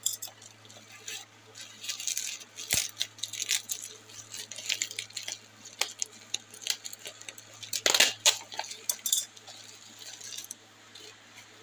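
Plastic bubble wrap crinkling and crackling as a product is handled and unwrapped from it, in irregular runs of crackles with a louder flurry about eight seconds in. A single knock comes about three seconds in.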